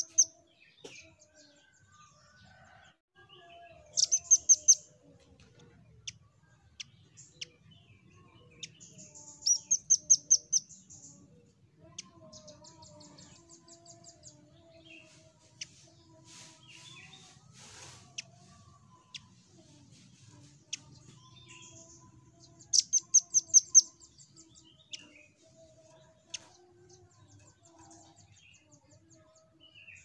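Velvet-fronted nuthatch calling in short bursts of rapid, sharp, high trilled notes, each burst about a second long, with the loudest about 4 s in, around 10 s and around 23 s. Fainter chirps and lower whistled notes sound between the bursts.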